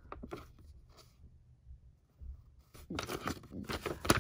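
A paper instruction sheet being handled and turned over: a few faint rustles at first, then louder crinkling and rustling from about three seconds in as the sheet is flipped.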